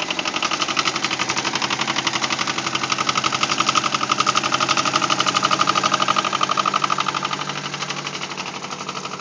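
Yanmar YM2000 compact tractor's two-cylinder diesel engine running with a fast, even knocking beat as the tractor drives off. It gets louder as it passes close by a few seconds in, then fades as it moves away near the end.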